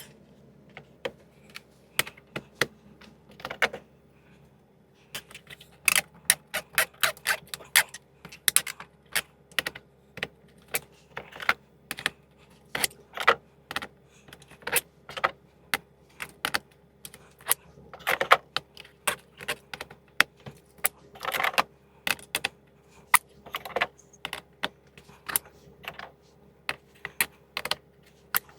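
Blue Point deep sockets clinking against each other and clicking onto Ernst Socket Boss twist-lock socket rails: irregular sharp metallic clicks, a few a second.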